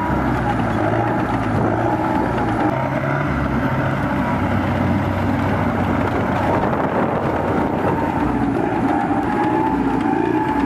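Heavy vehicle engine running steadily under a loud, continuous drone.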